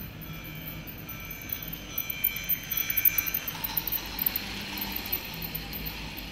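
Toy train, a locomotive hauling freight wagons, running on plastic track as it passes close by: a quick run of clicks and rattles from the wheels and mechanism, loudest about two to four seconds in, with a hiss as the locomotive goes past.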